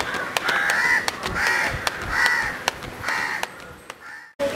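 A crow cawing over and over, short harsh calls about half a second apart, with sharp clicks among them; the sound cuts off abruptly near the end.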